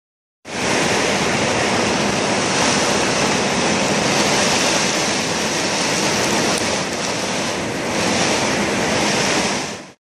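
Heavy storm rain with strong wind: a dense, steady hiss that starts suddenly about half a second in and fades out near the end.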